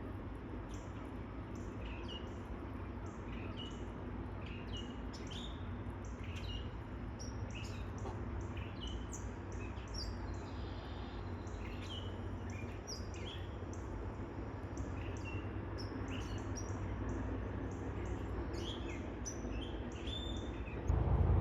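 Birds chirping: many short, high chirps, several a second, over a steady low background rumble.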